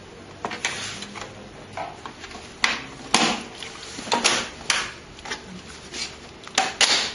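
Irregular plastic clicks and knocks of hands handling parts and cables inside an open desktop PC case, with the loudest knocks about three seconds in and near the end.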